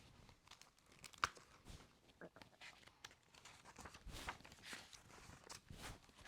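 Faint paper rustling and crinkling from a picture book being handled, with a sharp click about a second in.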